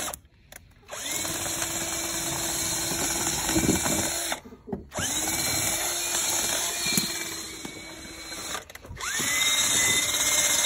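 Cordless drill spinning a rubber-finger poultry plucker head against a scalded turkey to strip its feathers. It runs three times with short stops between, and each run starts with a rising whine as the motor spins up.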